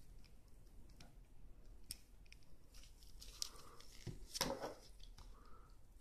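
Faint clicks and crunching scrapes of a Stanley 12-in-1 multi-tool's pliers jaws working at Romex cable insulation to strip it. A louder cluster of clicks comes about four seconds in.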